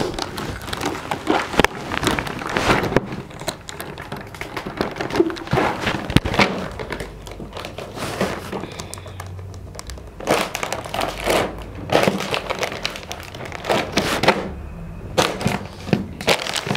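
Plastic Kurkure snack packets crinkling and crackling as they are bitten, lifted and shaken by the teeth and pressed against a table to tear them open, with irregular crackles throughout.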